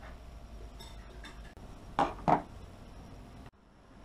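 Small metal clicks and taps from handling a hard drive's head-stack actuator arm: a few faint ticks, then two sharp clicks a quarter second apart about two seconds in.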